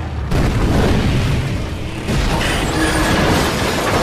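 Film explosions as an SUV is blasted over and crashes: a sudden blast about a quarter second in, a long low rumble with debris, then a second blast about two seconds in.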